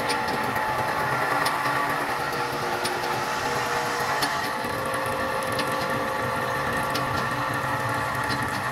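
Small electric oil transfer pump running steadily with an even hum, pumping automatic transmission fluid from a can into the transmission. A few light ticks sound now and then.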